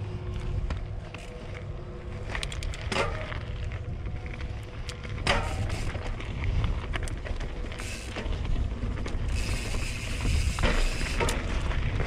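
Mountain bike rolling down a dirt trail as heard from a bike- or helmet-mounted camera: a steady low wind rumble on the microphone, with the tyres crunching over dirt and rocks and the bike rattling in sharp clicks now and then.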